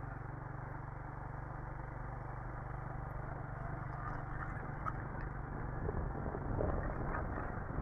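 Motorcycle engine running steadily at low speed while riding over a broken, potholed road, with a few light knocks from the bumps near the end.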